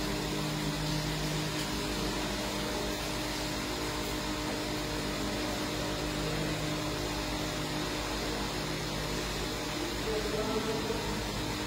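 Steady mechanical hum from a ventilation unit, with a constant low drone made of several fixed tones and an even hiss over it.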